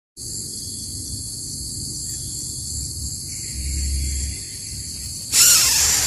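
Steady high-pitched drone of insects, several even tones held together, over a low rumble. Just over five seconds in, a much louder, noisy sound cuts in suddenly.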